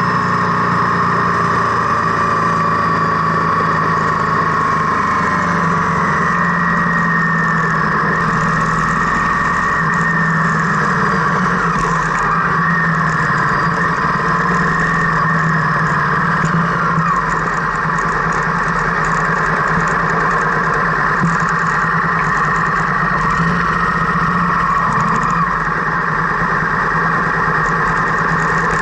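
A car driving, heard from inside the cabin: a steady drone of engine and road noise whose pitch drifts slowly as the speed changes.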